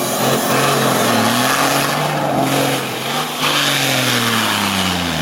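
Off-road 4x4 competition vehicle's engine revving hard under load: the pitch climbs, holds, then sinks and dies away near the end as the engine stalls.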